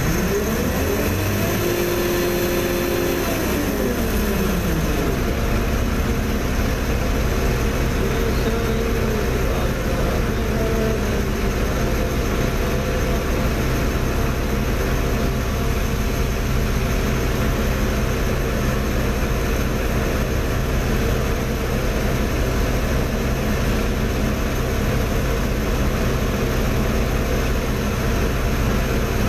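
Mobile crane's diesel engine running under load, its pitch rising and then falling back in the first few seconds before it settles to a steady drone.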